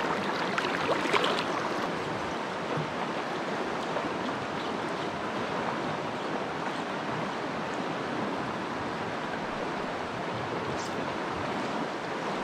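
Mountain stream rushing steadily over riffles. In the first second or so there is splashing in shallow water as a trout is let go from a hand.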